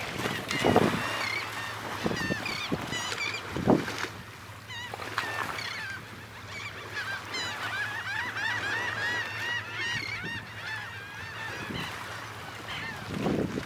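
Many birds calling at once: short, high, chirping calls overlapping thickly, busiest in the second half. A few low thumps break in, the loudest about four seconds in.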